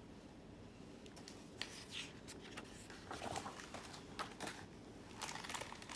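Faint rustling and scattered small clicks of a paper picture book being handled, its pages turned.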